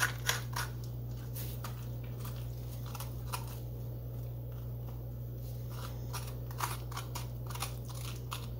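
Serrated grapefruit spoon scraping seeds and stringy pulp out of a raw acorn squash half: a run of short scratchy scrapes, thickest in the first second and again near the end.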